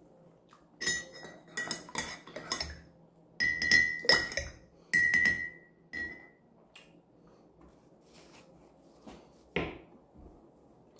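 Metal cutlery clinking against ceramic tableware while eating, several bright ringing clinks in clusters over the first six seconds. A few faint taps follow, and a single louder knock near the end.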